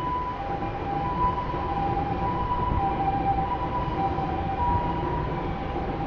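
Japanese railway level-crossing alarm sounding steadily, two tones alternating back and forth, over a low rumbling noise.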